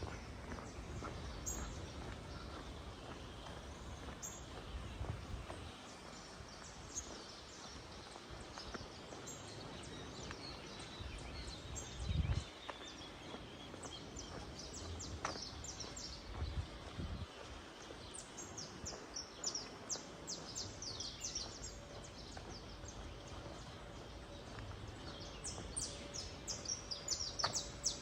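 Small birds chirping in quick, high calls over a steady wash of outdoor background noise, the chirps coming thick and fast in the last few seconds. A brief low rumble about twelve seconds in.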